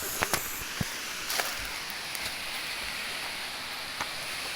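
Steady rushing noise of a waterfall's falling water, with a few sharp clicks in the first second and a half.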